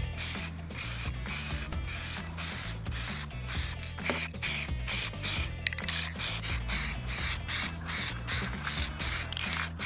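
Aerosol spray can of clear coat hissing in quick short spurts, about two or three a second, as it is sprayed over stained wood.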